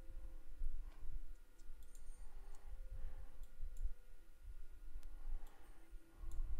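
Light, scattered computer mouse and keyboard clicks, about ten, over a low steady rumble from the desk microphone.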